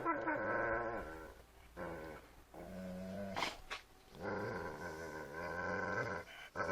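Dog growling in play, in several long growls with a wavering pitch, the longest about two seconds near the end.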